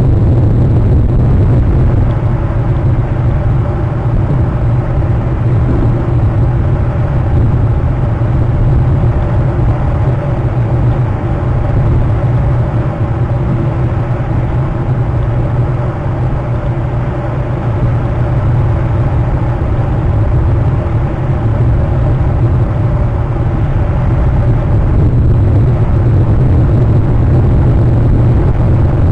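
Steady, loud, low rumble of wind buffeting the microphone of an outdoor nest camera, with a faint hum above it.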